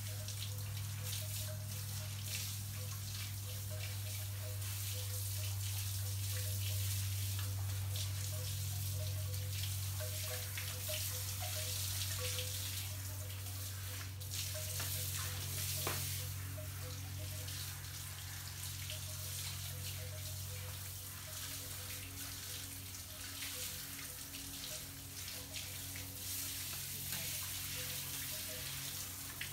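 Garden hose spraying and splashing water over a dog's coat and a wet patio, with a steady low hum underneath throughout.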